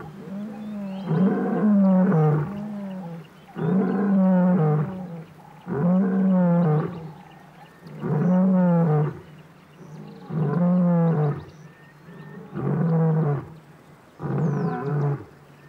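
A lion roaring in a long bout: about seven roars, each about a second long and roughly two seconds apart, growing a little quieter toward the end. Roaring like this tells other lions that the territory is claimed.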